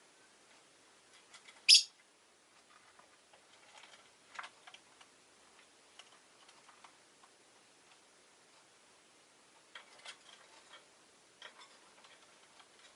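Peach-faced lovebird giving one short, sharp, high chirp about two seconds in, followed by scattered faint clicks and soft chirps.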